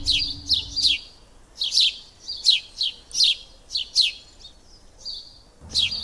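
A bird calling a run of quick chirps that each sweep sharply downward, one or two at a time, with a few short steady high notes between them. Electronic music fades out in the first second.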